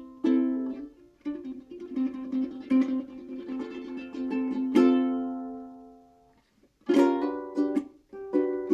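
Soprano Outdoor Ukulele strung with Southcoast strings, played solo: picked notes and chords, then a chord about five seconds in is left to ring and fade away. After a brief gap, strummed chords start again near the end.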